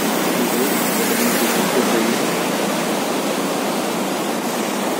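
Steady rushing hiss of water, with no breaks.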